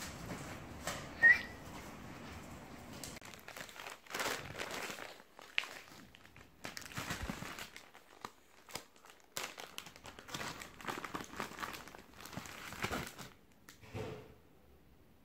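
Rustling and crinkling handling noise as hands leaf through a paper manual and handle packaging and a coiled power cord from a TV box, in many short irregular bursts. A brief sharp squeak about a second in is the loudest sound.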